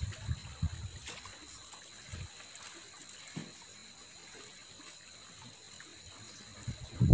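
Light water splashing and lapping, with a few soft low thumps in the first few seconds and a louder low rush of noise right at the end.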